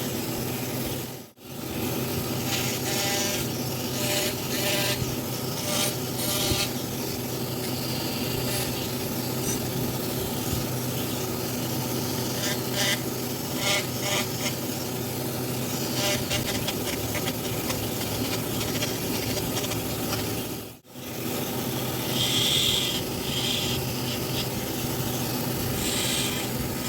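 Wood being worked with an abrasive tool, a steady rubbing, rasping sound with a faint hum beneath it. It drops out briefly twice, about a second in and again about twenty seconds later.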